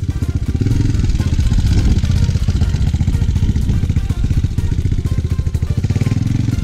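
Motorcycle engine running, a fast, even pulsing with most of its weight low in pitch.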